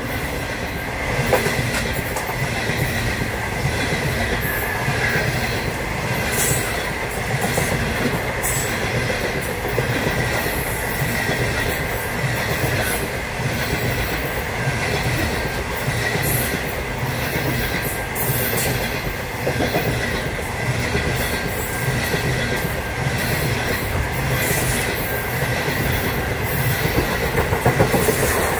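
Stainless-steel passenger carriages rolling past at steady speed: a continuous rumble of wheels on rail with scattered clicks over the rail joints and a thin, steady high wheel squeal.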